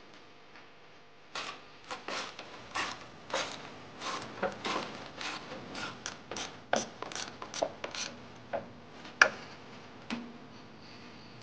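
Hand socket ratchet being worked on bolts at a car's front end: an irregular run of clicking strokes, two or three a second, with one louder metallic knock near the end.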